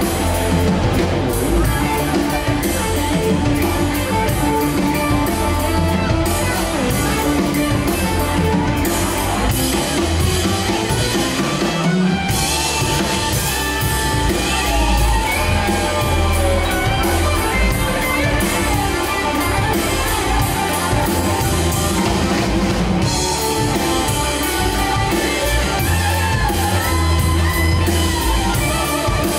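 Live blues-rock band playing an instrumental passage: electric guitar lead lines with bent notes over drum kit, bass guitar and keyboard.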